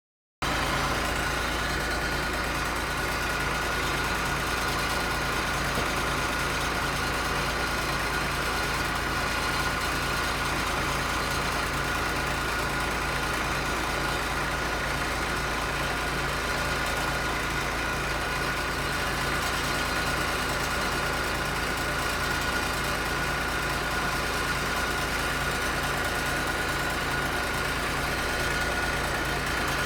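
Old school bus diesel engine running steadily at an even speed, with a constant high whine above the engine note. It cuts in abruptly about half a second in.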